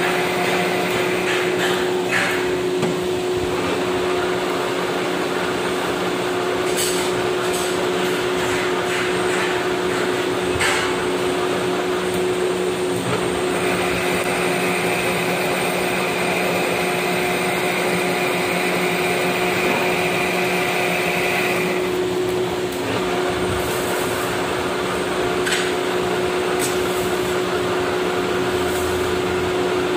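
Metal lathe running steadily during thread cutting on a steel shaft, a constant hum of motor and gearing. A higher steady whine joins for several seconds midway, with a few short clicks scattered through.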